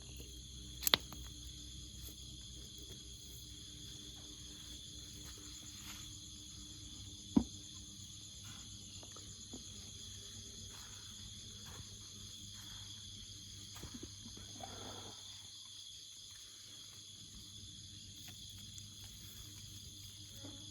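Steady high-pitched chorus of jungle insects, with two sharp knocks, about a second in and again about seven seconds in, and a few faint rustles.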